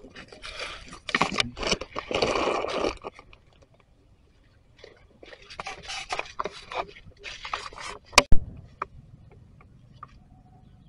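Dry fallen leaves crunching and rustling underfoot in two stretches of footsteps. Past the middle comes a single sharp click.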